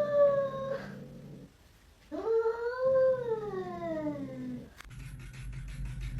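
A cat yowling in long, drawn-out meows. The first call trails off about a second in, and a second call rises and then falls away in pitch. Near the end there is a sharp click, then a steady hiss.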